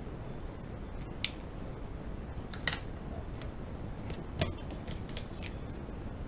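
Sharp clicks and light taps of drawing tools being handled on a desk as a black pen is put down and a red pencil picked up. Three louder clicks are spread through, with fainter ticks between, over a steady low background hiss.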